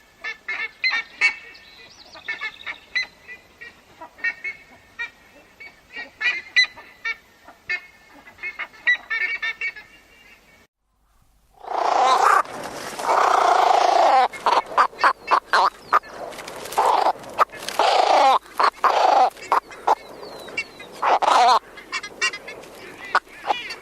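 African sacred ibis calling. The first half is a quick series of short, high-pitched squeaky calls. After a brief silence a little before halfway, a louder run of harsh, hoarse calls follows, some drawn out, with short sharp clicks between them.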